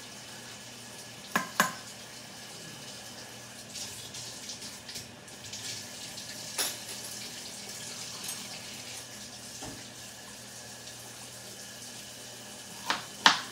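Kitchen tap running into a stainless steel sink while something is rinsed under it. A couple of sharp knocks of utensils against the sink about a second and a half in, and two more near the end.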